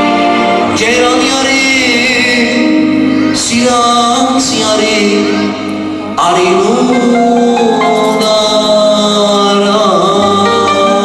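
A male singer singing live into a handheld microphone over a band with electric guitar and drums. The music dips briefly just before six seconds in, then comes back in full.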